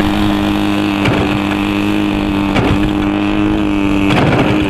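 Radio-controlled Yak-54's DA-50 petrol engine, fitted with a Zimmerman exhaust pipe, running steadily at a constant speed, with a few brief clicks.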